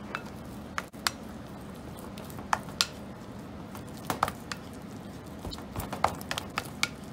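Plastic spatula working sticky, partly set glutinous rice flour dough in a glass bowl: soft squishing with irregular sharp clicks and taps as the spatula knocks against the glass. The dough has set in places after its first microwave heating, and the firm and soft parts are being mixed together.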